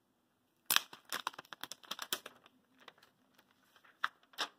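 Factory protective plastic film being peeled off a new smartphone, crinkling in a quick irregular run of crackles that starts about a second in, the first one the loudest.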